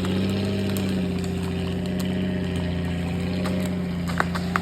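Off-road 4x4 engine running steadily at low revs. The pitch eases down slightly about a second in, and there are a couple of sharp clicks near the end.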